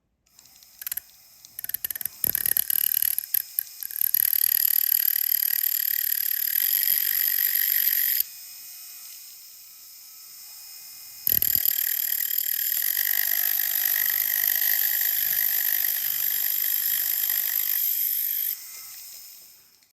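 High-speed rotary tool with a cutoff disc cutting through a metal bracelet link at its solder seam: a steady high whine after a few short starts, dropping away for about three seconds midway and then running on for about seven seconds more.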